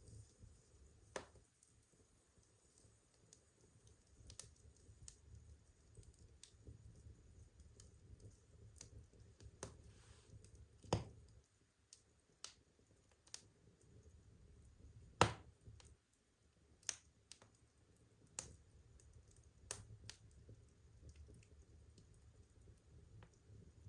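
Burning firewood crackling: sparse, irregular pops and snaps, with two louder pops about halfway and two-thirds of the way through.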